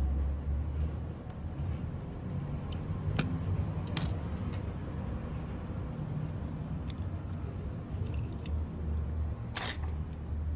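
Steady low background rumble with a few short, sharp clicks and taps, the loudest one a little before the end.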